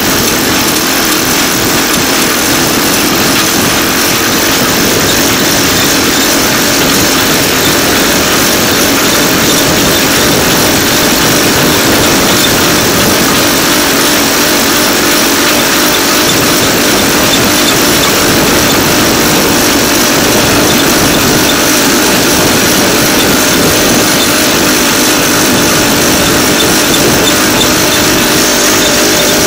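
DL2 motor draisine running steadily along the rails: its engine drones evenly under the continuous rolling noise of its wheels on the track, with no change in speed.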